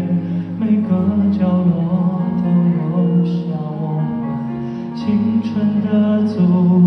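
A man singing a Chinese-language song live with a band accompanying him, holding long notes.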